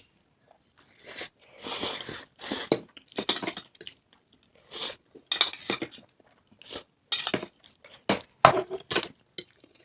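Cutlery clinking and scraping against dishes at the table, with chewing noises, in irregular short bursts separated by brief quiet gaps.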